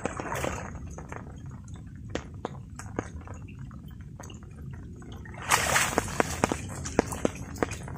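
Water sloshing and swirling around a person wading chest-deep, with many scattered drips and small taps throughout. A louder splash comes about five and a half seconds in.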